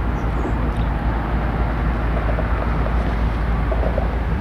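BNSF diesel locomotive running as it leads a stack train toward the listener: a steady low rumble with a faint engine drone above it.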